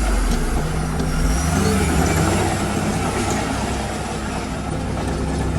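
Heavy diesel engine of earthmoving machinery running steadily with a deep, even drone.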